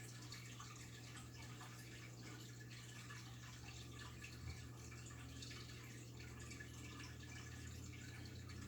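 Faint dripping and trickling water in a goldfish tank: many small ticks over a steady low hum, with one soft knock about halfway through.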